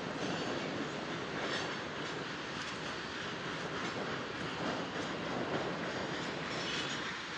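Freight train tank cars rolling past: steady noise of steel wheels running on the rails, with a few brief brighter clicks along the way.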